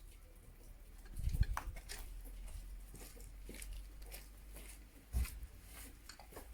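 Scattered clicks and light metallic ticks of hand tools and loose nuts while an Izh Jupiter 5 motorcycle's cylinder-head nuts are undone. Two louder dull knocks, about a second in and again about five seconds in.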